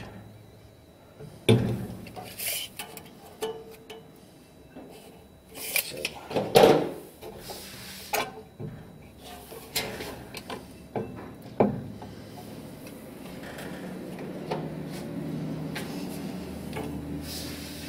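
A cast aluminium heated bed plate being shifted by hand on its metal standoffs over an aluminium T-slot frame: scattered knocks and scrapes of metal on metal, the loudest about six and a half seconds in, with a steadier rubbing near the end.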